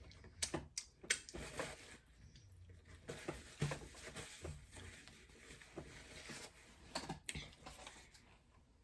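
Paper rustling and crinkling with scattered light clicks and taps, as an envelope of mail is picked up and handled.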